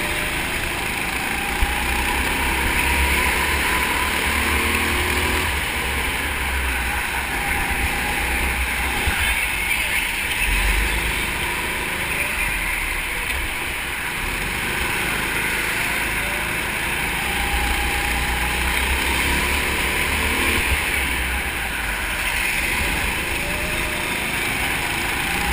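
Go-kart engine running under load as the kart laps the track, its pitch rising and falling with the throttle through the corners, with a steady rushing noise over it.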